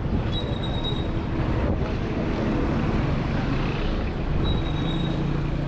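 Busy city street traffic, with car and motorbike engines running close by in a steady low hum. A thin high tone sounds briefly twice.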